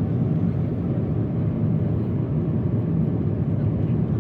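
Steady low drone of a Boeing 777-300ER's cabin in cruise: engine and airflow noise, even and unchanging.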